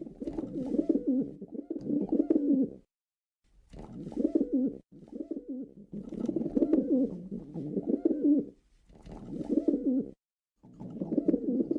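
Pigeon cooing: low, warbling coos in repeated phrases of one to three seconds, broken by short silences.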